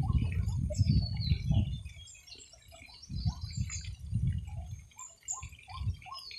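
Wooden spatulas turning over a folded omelette in a nonstick pan: low knocks and scrapes in two spells, the first over the opening two seconds and the second from about three seconds to near the end. Birds chirp in the background throughout.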